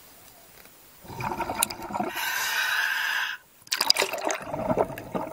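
Water splashing and bubbling around a scuba diver as they go under the river surface, with a steady hiss lasting about a second in the middle and scattered clicks and sloshes near the end.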